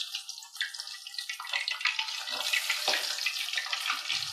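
Chicken leg pieces deep-frying in hot oil in a kadai: a steady crackling sizzle, with a few light knocks as a slotted metal spoon turns the pieces in the pan.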